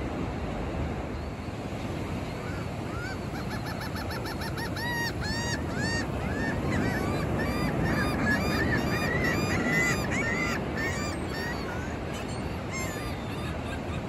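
Gulls calling in a rapid run of short, repeated squawks over steady breaking surf. The calls start a few seconds in and die away near the end.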